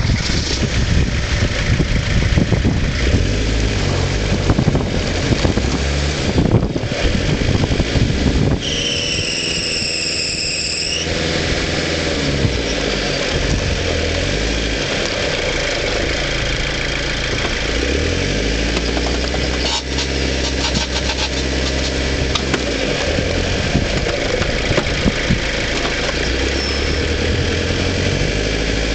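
A Frontera 4x4's engine running as it drives over a rough off-road track, its pitch stepping up and down with the throttle. The first several seconds are rough and noisy with jolting and wind, and a brief high whistle sounds about nine seconds in.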